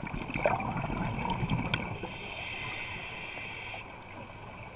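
Underwater scuba breathing: exhaled bubbles rumble and gurgle past the microphone for about two seconds. Then the regulator hisses steadily through an inhalation and cuts off abruptly near the end.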